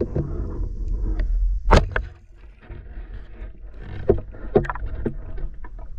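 Water splashing and sloshing with a series of sharp knocks, the loudest a little under two seconds in, over a constant low rumble.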